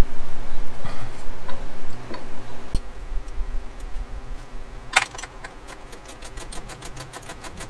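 Socket ratchet clicking in quick, even strokes from about five seconds in as the new exhaust mounting bolt is run down; before that, a few light metallic taps and a knock.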